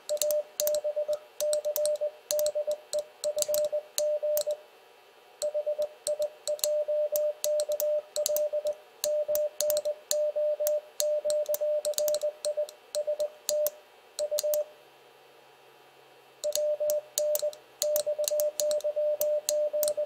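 Morse code sidetone from a ham radio transceiver: a single tone of about 600 Hz keyed into rapid dits and dahs, with the brass paddle's levers clicking along. The alphabet is being sent as a CW warm-up, at around 20 words per minute. It stops twice, briefly about five seconds in and for nearly two seconds about fifteen seconds in.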